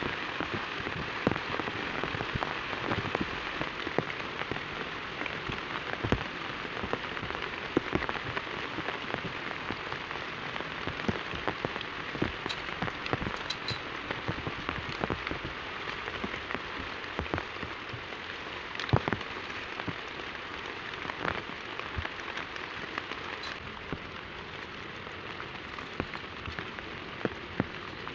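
Steady heavy rain falling, with many separate drop hits standing out from the constant hiss.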